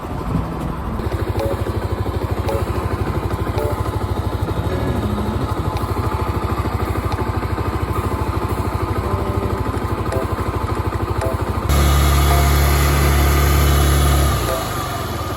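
Suzuki Marauder 125's single-cylinder four-stroke engine idling with an even, steady beat. About twelve seconds in it is revved for a couple of seconds, then drops back to idle.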